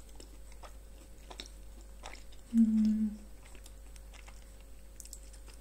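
Close-miked mouth sounds of someone eating toast: soft wet clicks of chewing and swallowing, with a short hummed "mm" about two and a half seconds in. Near the end come quiet sips from a glass of water.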